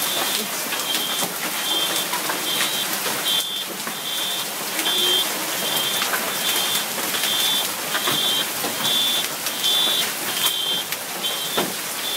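Hail and heavy rain pelting down, hailstones striking the ground and hard surfaces in many sharp clicks over a steady hiss. A high electronic beep repeats about one and a half times a second.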